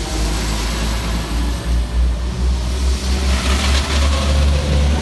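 Two coupled Class 172 Turbostar diesel multiple units pulling out of the station, their underfloor diesel engines running under power as the train accelerates away, with a heavy rumble.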